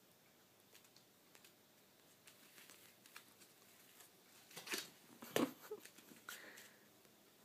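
Two Abyssinian cats play-fighting on a foam mattress: light scratches and rustles of paws on the fabric, then a burst of thuds and scuffling about four and a half seconds in as one pounces and they grapple.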